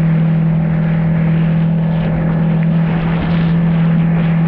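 Jet ski engine running at a steady pitch, a constant drone, with the hiss and rush of water spraying past the hull.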